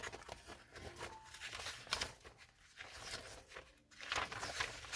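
Glossy catalog pages being turned by hand, with a series of irregular paper rustles and flaps and a short lull shortly before the end.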